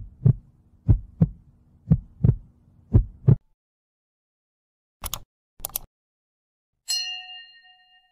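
Heartbeat sound effect: four double beats about a second apart. Then two quick double clicks, and a bright notification-bell ding that rings and fades, the sounds of an animated like, subscribe and bell-icon banner.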